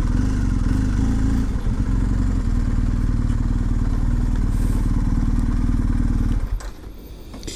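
Motorcycle engine idling steadily, then switched off about six and a half seconds in.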